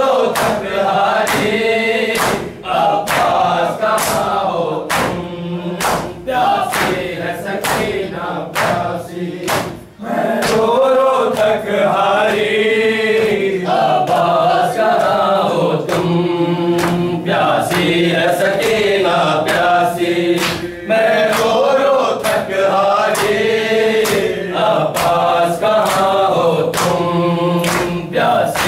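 A group of men chanting an Urdu noha, with sharp rhythmic slaps of matam (hands striking bare chests) beating time under the singing.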